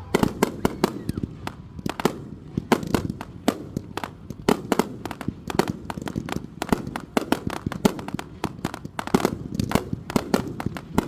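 Saturn Missile fireworks going off en masse: a dense, irregular barrage of sharp pops and bangs, several a second.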